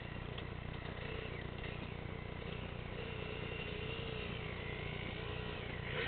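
Distant dirt bike engine revving as the bike climbs a rocky hillside, its note rising and falling with the throttle, over a steady low rumble.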